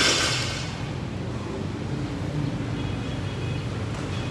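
Steady low hum of gym room noise. In the first second the clatter of a loaded barbell dropped onto the rubber floor fades away.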